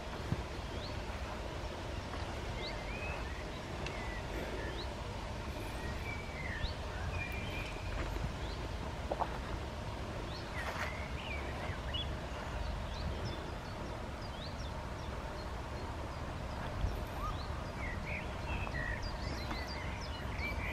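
Small birds chirping and twittering outdoors, short high calls scattered throughout and growing busier near the end, over a steady low rumble.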